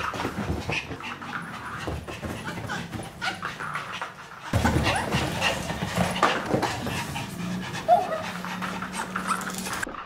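Maltese dogs panting and scrambling about in excited post-bath play, with many quick clicks and scuffles of paws and claws.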